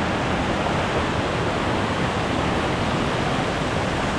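Rocky mountain stream rushing over small cascades: a steady, even rush of water.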